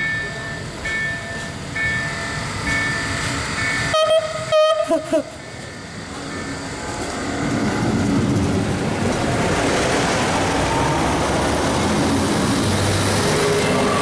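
Level-crossing warning bell sounding a short double tone about once a second, then the horn of the MR/MRD diesel multiple unit blasting briefly about four seconds in. After that the two-car diesel unit passes close by, its engine and wheel noise swelling into a steady rush.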